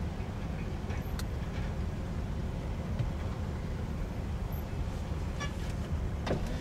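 Kobelco SK260LC excavator's diesel engine running steadily under load as the bucket digs into soil, with a few faint clicks.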